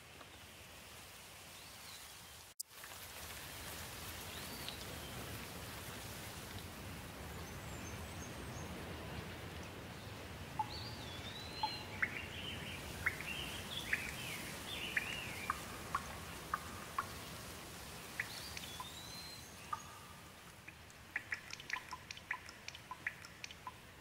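Steady rain falling, with a bird calling in short repeated chirps through the middle, and a quick run of sharp water drips near the end.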